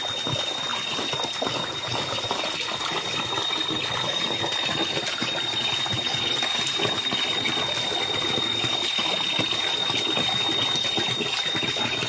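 Water gushing steadily from the open end of a hose pipe and splashing onto rocks. A steady high-pitched tone runs over it throughout.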